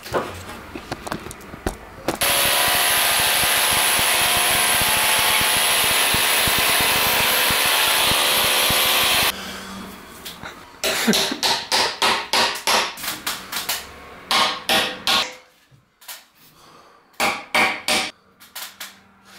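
An electric power tool runs steadily for about seven seconds and stops abruptly. Then a claw hammer strikes wooden trim in quick runs of blows, about two or three a second, with a short pause before a last few.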